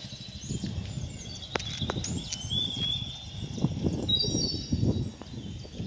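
Several birds chirping and calling with short high whistled notes, over an irregular low rumble on the microphone.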